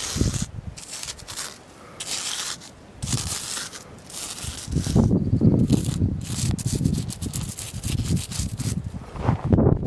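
A lump of charcoal rubbed and scraped across rough stone in repeated short strokes, heavier and lower in the second half.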